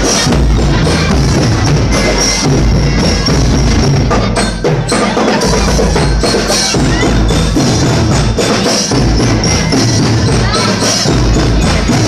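Loud music with a busy beat of wooden-sounding percussion over a heavy bass.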